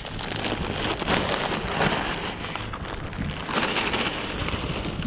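Organic lobster compost pouring out of its plastic bag onto the soil of a raised garden bed: a continuous rushing, rain-like patter that swells about a second in and again near the end.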